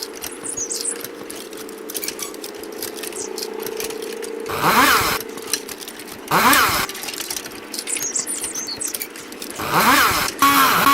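Chainsaw running with a steady hum, revved up and back down in three short bursts, about four and a half seconds in, a second and a half later, and near the end.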